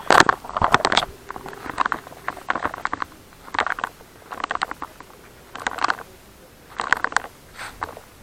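Footsteps crunching through dry ground cover at a walking pace, a crackly cluster about once a second with short quiet gaps.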